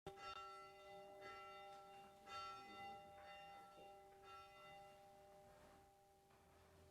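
Faint bell strikes about once a second, each ringing on and overlapping the next, dying away after about five seconds.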